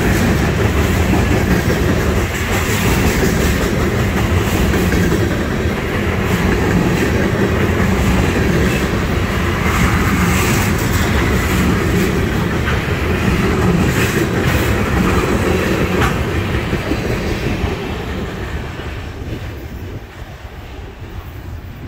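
Freight cars loaded with trash containers rolling past: a steady noise of steel wheels on the rails with scattered sharp clicks as wheels cross rail joints. The sound fades over the last few seconds as the end of the train passes and draws away.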